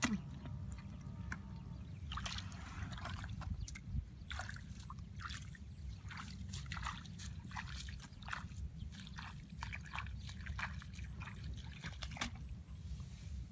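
Water sloshing and splashing in many short, irregular splashes and drips, as when someone works in shallow water, with a steady low rumble underneath.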